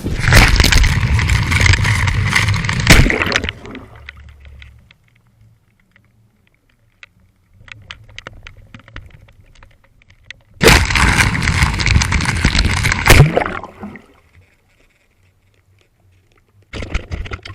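Water noise and scraping picked up by a GoPro's microphone underwater: two loud stretches of rushing, scraping noise of about three seconds each, with faint scattered crackles and quiet between them.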